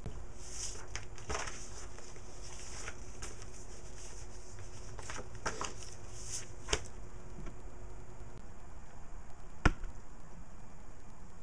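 Paper rustling and crinkling as a flyer and loose papers are handled, in a run of swishes and small taps, then one sharp click or knock near the end, over a steady low hum.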